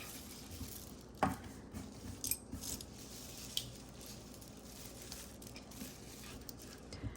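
Small metal discs and wood and plastic beads of a tangled chunky necklace clinking and rattling against each other as the knot is worked loose by hand, in scattered light clicks with a sharper click about a second in.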